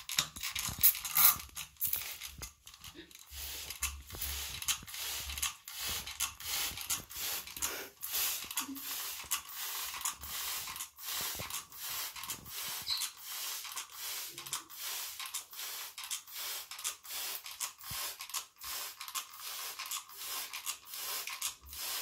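A pigeon ruffling, shaking and preening its wet feathers after a bath: a rapid, irregular feather rustle of many quick flicks, loudest in the first couple of seconds.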